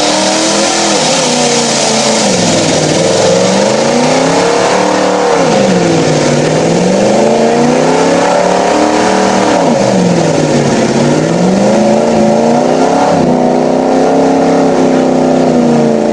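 Mud-bogging pickup truck's engine revving hard as the truck churns through a deep mud pit. The revs swing up and down about three times, then hold high and steady near the end.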